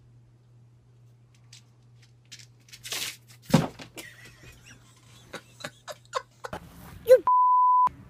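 A short censor bleep, a steady beep held for just over half a second near the end, is the loudest sound. Before it come scattered faint clicks and knocks over a low steady hum.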